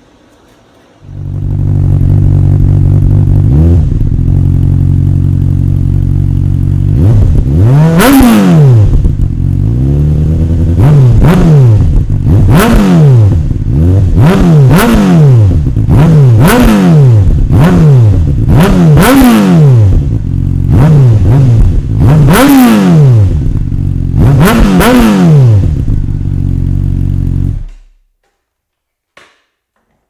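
Honda CBR600RR inline-four engine through a Yoshimura RS5 slip-on exhaust, starting suddenly about a second in and idling steadily. From about seven seconds in it is blipped through a long string of quick revs, each rising and falling in pitch, before it cuts off near the end.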